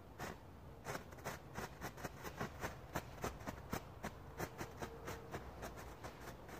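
Small category 1 ground firework burning, with a steady run of sharp crackling pops at about four a second.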